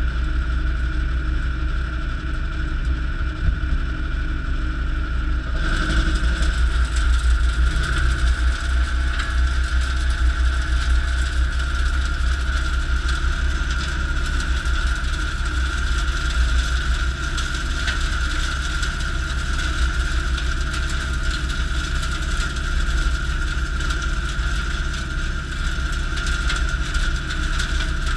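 Valtra A95 tractor's diesel engine running under load with the PTO-driven Woods BB84X rotary cutter spinning, a steady whine over a low rumble. About six seconds in, a hiss of cutting and brush noise joins and continues as the cutter mows through tall grass and brush.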